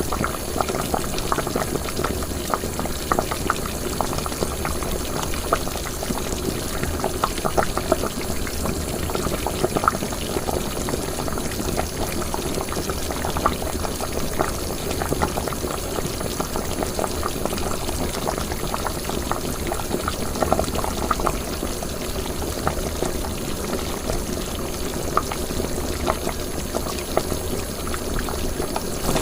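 Liquid boiling in a cooking pot: a steady bubbling with many small, quick pops.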